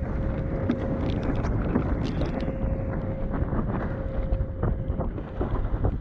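Gusty wind buffeting the microphone of a camera mounted on an iQFoil windsurf board, with water rushing and spray slapping against board and sail in many short hits. A steady tone runs underneath, breaking off briefly about two seconds in and stopping about five seconds in.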